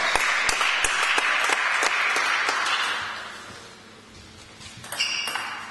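Spectators clapping after a point in a table tennis match, dying away about three seconds in.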